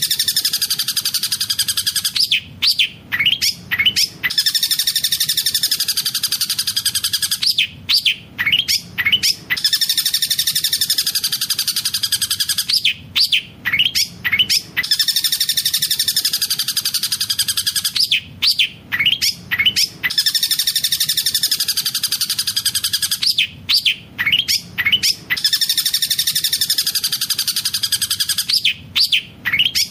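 Long-tailed shrike (cendet) singing a fast rolling song with collared kingfisher phrases mixed in. A rapid, wavering trill runs for about three seconds and then breaks into a quick burst of sharp chirps, and the same phrase comes round again about every five seconds.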